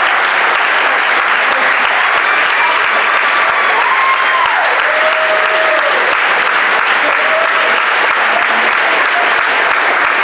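Audience applauding steadily, with a few voices calling out over the clapping.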